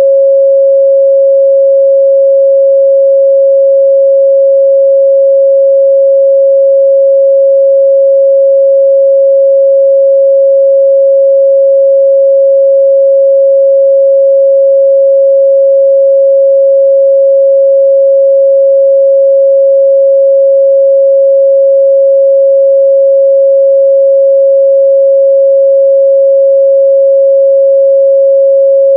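A pure 547 Hz sine-wave test tone, held steady and loud at one pitch with no other sound.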